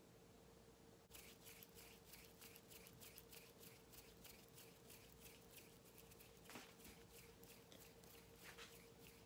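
Faint, crisp hand sounds close to the microphone: fingers rubbing and flicking in a quick, irregular run of small brushes, about four a second, starting about a second in, over a faint steady hum.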